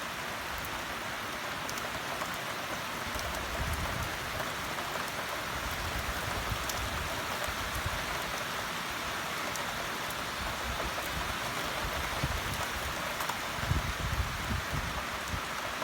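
Steady rainfall, a constant hiss with scattered drop ticks and a few low thumps of wind on the microphone near the end.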